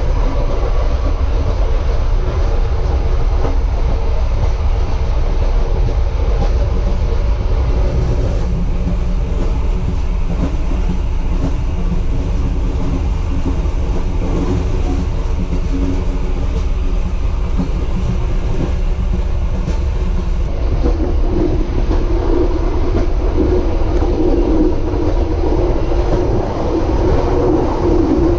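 Passenger train running along the line, a loud steady rumble of wheels on rail heard from inside the carriage, with a droning hum that grows stronger about three-quarters of the way through.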